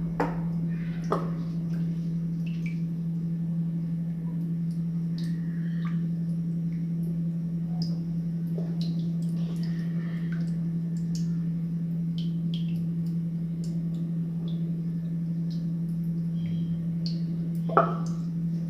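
Spoon scraping and tapping against a baking pan while chicken filling is spread over pie batter: scattered light clicks, with one louder knock near the end, over a steady low hum.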